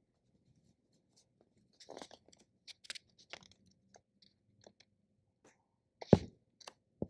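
Scattered soft rustling and small clicks close to a clip-on lapel microphone, with one sharp knock about six seconds in.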